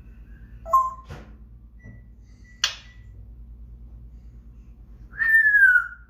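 African grey parrot whistling: a short whistled note about a second in, a sharp click near the middle, and a loud, longer whistle that falls slightly in pitch near the end.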